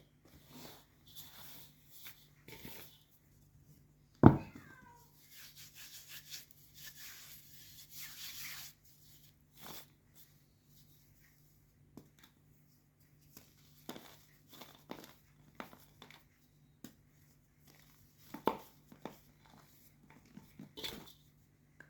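White gym chalk being crushed and crumbled by hand: scattered short crunches and crackles with quiet gaps, a stretch of gritty crumbling, and one loud sharp knock about four seconds in.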